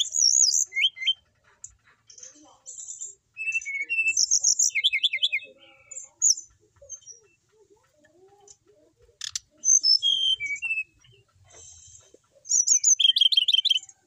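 A brown-chested jungle flycatcher singing in bouts: short phrases of rapid, high trills and whistles broken by brief pauses. There is a single sharp click about nine seconds in.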